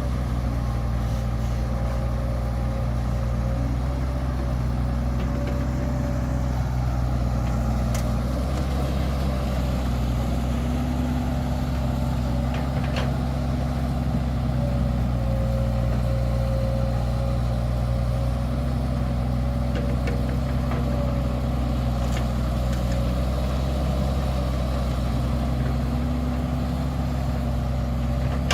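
Engine running steadily at a constant pitch, with a few faint clicks.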